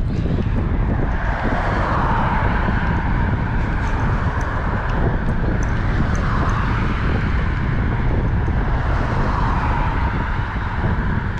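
Wind buffeting the microphone on a moving bicycle: a steady low rumble, with a hiss that swells and fades about three times.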